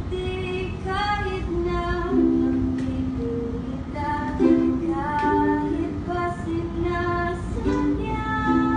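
Teenage students singing a slow song together in high voices, holding long notes, sometimes in two parts.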